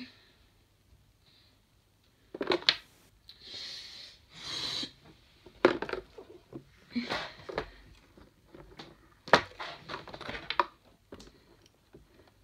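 Stikbot plastic toy figures being handled and set on a green-screen box stage: irregular knocks and clicks, with two short rustles a few seconds in.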